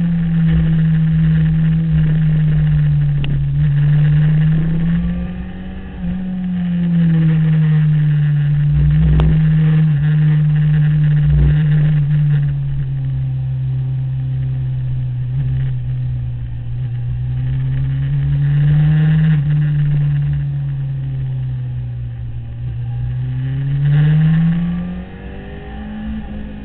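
Sport motorcycle engine heard from on board, its pitch sliding up and down again and again as the rider accelerates and eases off through the corners, with wind rushing over the microphone.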